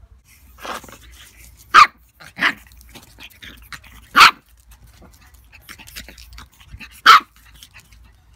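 Ten-week-old pug puppy barking in short barks: three loud ones a couple of seconds apart, with a few softer ones between.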